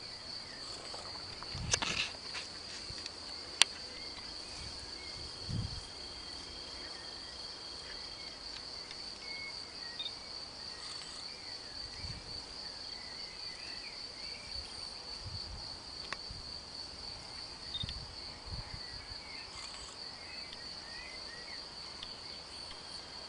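Steady high-pitched insect chirring, one unbroken trill throughout, with a couple of low thumps around two seconds in and a single sharp click shortly after.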